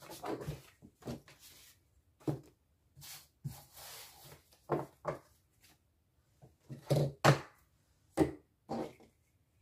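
Tarot cards being gathered up and restacked by hand on a tabletop: sliding and rustling with irregular soft taps and knocks, a cluster of louder knocks about seven seconds in.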